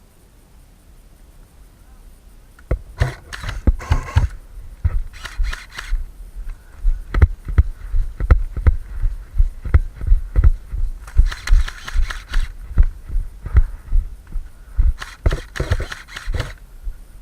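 Steady footsteps of a person walking, thudding about twice a second, with bursts of rustling in between; they start a few seconds in.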